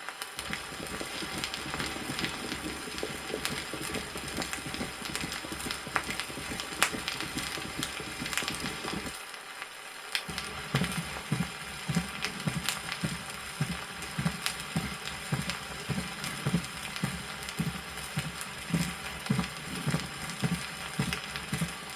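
Recorded heart sounds in a gallop rhythm, the three-beat cadence heard in certain pathological states of the heart, played from an old vinyl record under steady surface crackle. One example runs for about nine seconds, then after a brief break a second variant of the gallop rhythm follows with regular low beats.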